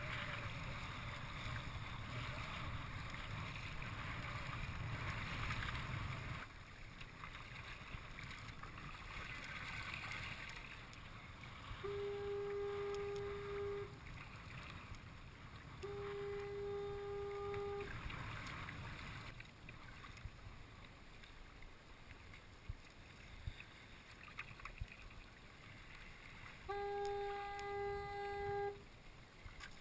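A horn sounds three long, steady blasts of about two seconds each, the first about twelve seconds in, the next about four seconds later and the last near the end. A steady rushing noise fills the first six seconds or so, then drops away.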